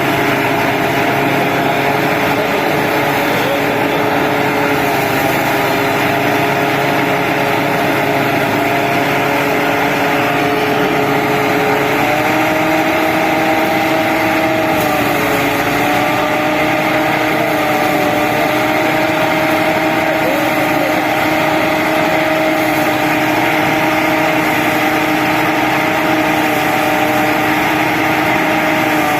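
A rice harvesting machine's engine running steadily, its pitch shifting slightly about twelve and fifteen seconds in.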